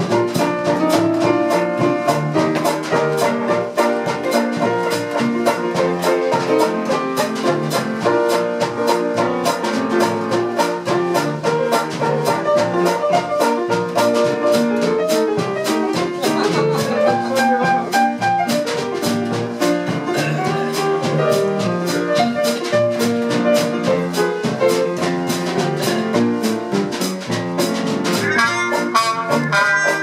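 Traditional jazz band playing live: a rhythm section with piano and double bass keeping a steady beat, and clarinet and trumpet joining in near the end.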